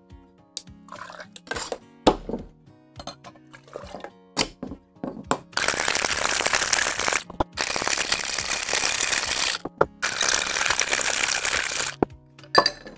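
Light knocks and clinks of ice and metal shaker tins, then a stainless-steel Boston shaker full of ice shaken hard: a loud, dense ice rattle in three stretches of about two seconds each, starting about halfway through, with brief breaks between them.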